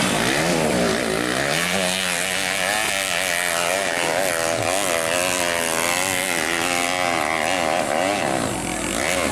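Motocross dirt bike engine revving hard under load on a steep dirt hill climb, its revs rising and falling again and again.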